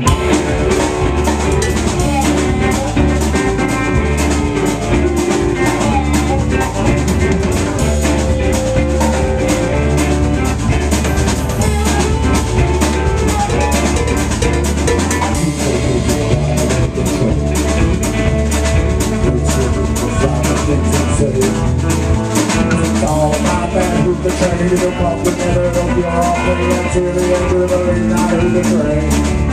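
Live band playing a song, with a drum kit keeping a steady driving beat over a low bass line.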